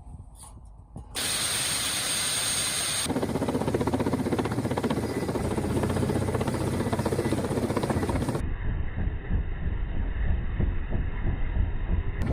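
Steady turbine and rotor noise from military helicopters, cut together from several clips so that its character changes abruptly at about one, three and eight seconds in, with a high steady whine in the second stretch.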